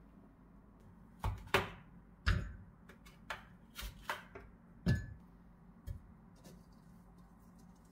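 Frozen banana halves and then frozen berries dropped into a glass blender jar: a string of sharp knocks and clunks, about eight over five seconds, as the hard frozen pieces hit the glass.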